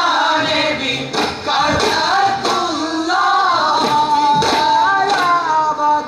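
A group of voices singing a folk song together through the stage sound system, with sharp percussive strikes now and then.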